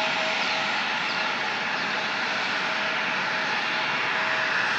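Turbofan engines of an Embraer E-jet airliner, General Electric CF34s, running steadily at ground idle: an even hiss with a constant tone through it.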